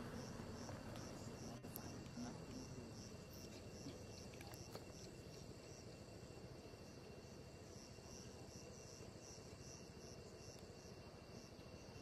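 Faint insects chirping in an even pulse, about two to three chirps a second, over a steady high-pitched drone.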